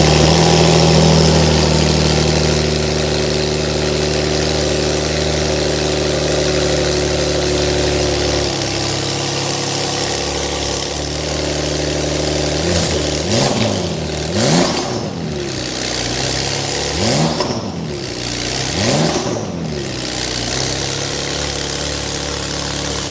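Porsche 992 Turbo S twin-turbo flat-six with a Capristo exhaust and 200-cell catalysts, running at a fast idle that drops to a lower idle about eight seconds in. In the second half the throttle is blipped four times, each rev rising and falling quickly.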